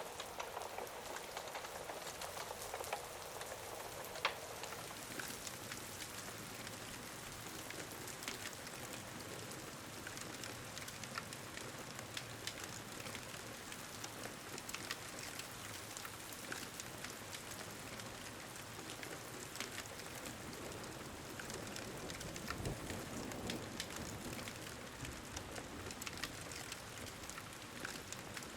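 Steady rain hissing, with scattered sharp crackles of a wood fire throughout and a soft low rumble of thunder swelling about three quarters of the way in.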